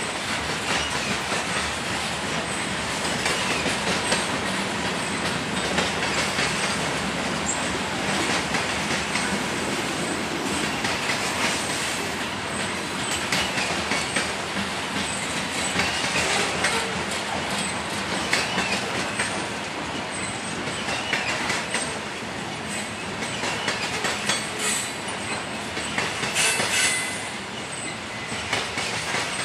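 Freight train's covered hopper cars rolling past on curved track: steady wheel rumble and clatter over the rails, with wheel flange squeal coming and going, strongest near the end.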